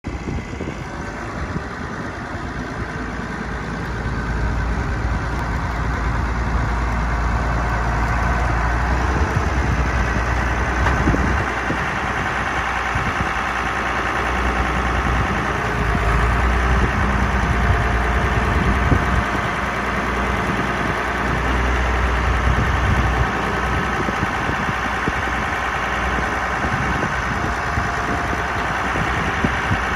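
Cockshutt 1850 tractor's engine idling steadily, growing louder over the first several seconds.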